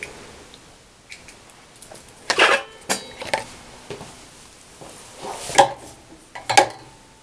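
Thread spools being handled and set onto a sewing machine's spool pins: a few separate knocks and clinks, the loudest about two and a half seconds in and two more near the end.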